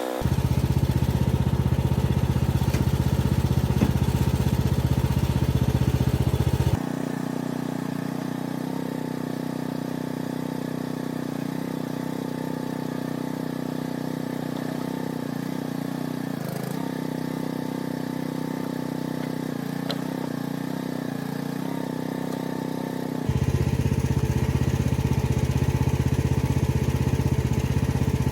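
Mini excavator's engine running steadily while it digs, its drone stepping abruptly quieter about seven seconds in and back up, louder, near the end.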